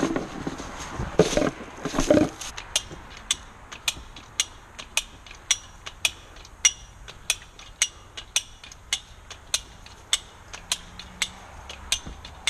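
A hand-operated ratcheting device clicking evenly, about two sharp clicks a second, as a line is tensioned to pull over a notched tree. The first two seconds are rustling, handling noise.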